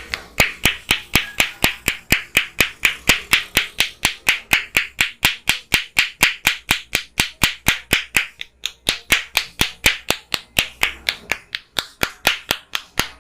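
Percussive head massage: a barber's hands striking the head in a fast, even clapping rhythm, about four to five strikes a second, with one brief pause a little past the middle.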